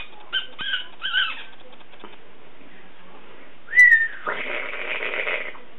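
Domestic cats squabbling: two short chirping meows early on, then a loud, short, high-pitched cry near four seconds in, followed by about a second and a half of harsh hissing.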